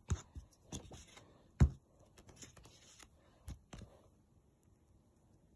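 Light taps and rubbing of hands working a small slime ball on a paper plate, with one louder thump about a second and a half in; the sounds stop after about four seconds.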